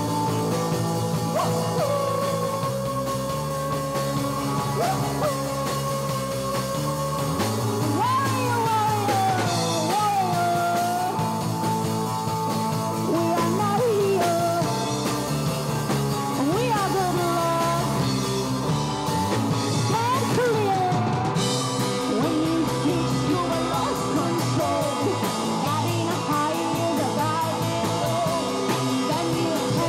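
A rock band playing live, with a steady bass line under a lead melody that repeatedly bends and glides up and down in pitch.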